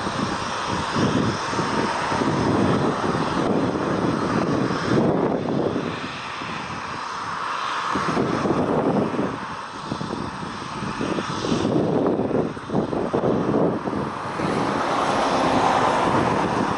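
Jet engines of a twin-engine widebody airliner at takeoff thrust during the takeoff roll and climb-out: a steady, noisy roar that swells and dips in loudness.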